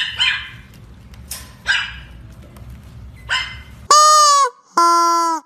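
A puppy's short, soft yips and whimpers, a few times, while it feeds from a bottle. Then, about four seconds in, two loud squeaks from a squeaky plastic toy, the first dipping in pitch at its end and the second lower and held steady.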